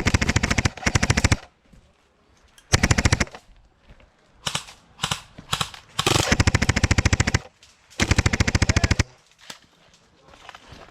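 Airsoft L86 LSW electric support gun firing full-auto in repeated bursts of rapid, even clicks. There are about five bursts, each half a second to a second and a half long, with short pauses between them.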